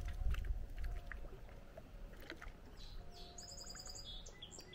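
Quiet lakeside outdoor ambience with faint low rumble and scattered light clicks, and a brief high bird trill about three and a half seconds in.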